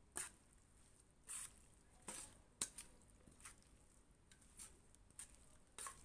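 A spoon tossing a wet instant-noodle salad in a stainless steel bowl: a string of short, irregular clinks of the utensil against the metal bowl and soft squishes of the dressed ingredients.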